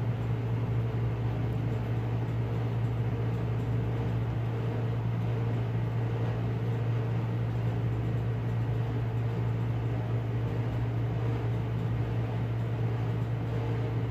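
Steady low machine hum with an even hiss over it, like a fan running.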